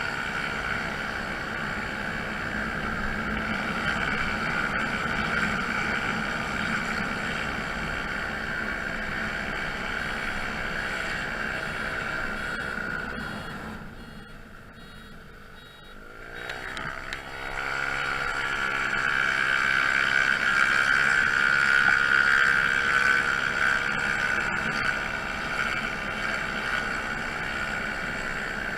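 Honda Zoomer's 49 cc single-cylinder four-stroke engine running on the road. A little before halfway it eases off to a low, quiet tick-over, then revs up with a rising pitch as the scooter pulls away and picks up speed again.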